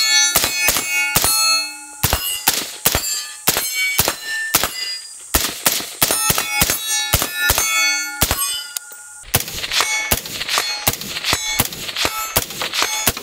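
Rapid semi-automatic fire from a suppressed AR-15 in .223 Wylde (a FoldAR MoBetta with a flow-through suppressor), several shots a second, with steel targets ringing as they are hit. Two strings of fire with a short pause about nine seconds in.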